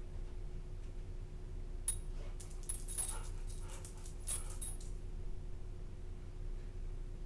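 Small dog moving about, the metal tags on its collar jingling in a cluster of quick clinks that lasts about three seconds, over a steady low room hum.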